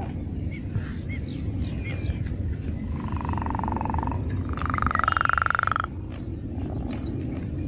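Two long trilled frog calls, each lasting a second or more, the second a little higher and louder, over a steady low rumble, with faint bird chirps.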